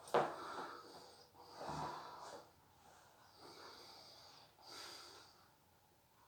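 A sleeping person's noisy breathing: a sharp snort right at the start, then two rasping breaths about three seconds apart, the first with a brief low snore in it.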